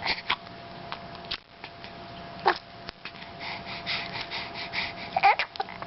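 Hiccups: several short, sharp hiccup sounds spaced out at irregular intervals, with a brief squeaky vocal sound near the end.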